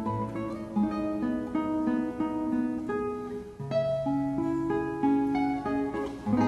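Background music: a plucked acoustic guitar playing a melody of short notes, with a held low note through the middle.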